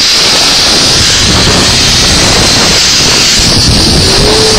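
Zipline ride at speed: wind rushing over the microphone together with the trolley running along the steel cable, a loud, steady rushing hiss with a bright high band. A held tone comes in near the end.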